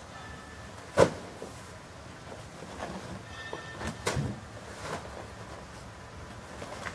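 Heavy paper sacks being loaded into a pushcart's metal tray, landing with dull thuds: a sharp one about a second in and another about four seconds in, with a few lighter knocks and rustles of sacking between.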